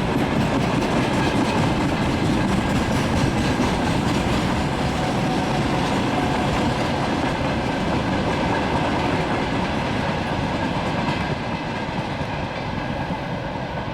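Freight train rolling past, its wheels clattering steadily over the rail joints. The sound eases slightly near the end.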